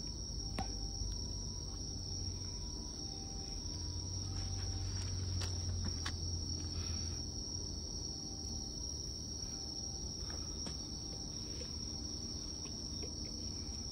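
A steady, high-pitched chorus of insects chirping, over a low rumble, with a few faint clicks.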